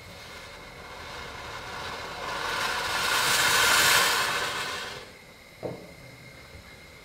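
Steam hissing as it is blown out low from the front of a 15-inch-gauge steam locomotive, swelling for a couple of seconds, then dying away. A short sharp knock follows near the end.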